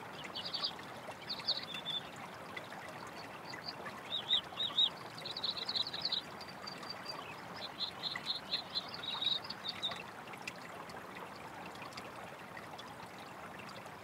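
Marsh ambience: a faint, even hiss of water with many short, high chirping calls in quick little groups, which stop about ten seconds in, leaving only the hiss.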